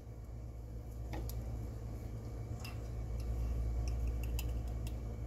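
A few faint, light clicks of a metal measuring spoon against a glass jar while dry yeast is scooped, over a steady low hum.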